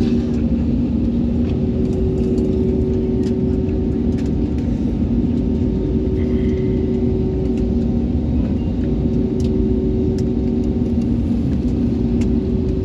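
Passenger airliner's engine noise heard from inside the cabin: a steady rumble with a steady two-note hum over it.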